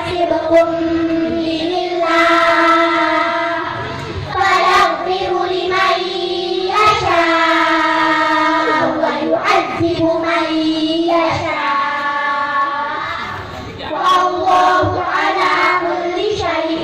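A group of children singing together in unison into microphones, amplified over loudspeakers, with long held notes and a short break about three-quarters of the way through.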